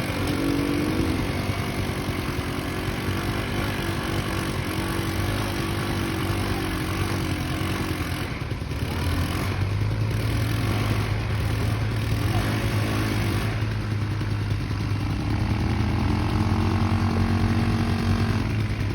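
A 200cc ATV's single engine running, its revs rising and falling.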